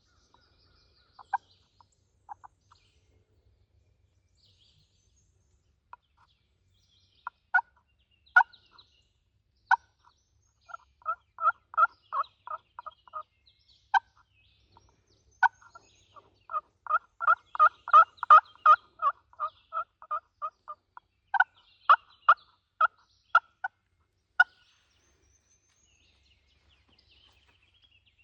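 Turkey yelping: single sharp yelps scattered at first, then two fast runs of several yelps a second, the second run the longest and loudest, closing with a few spaced yelps.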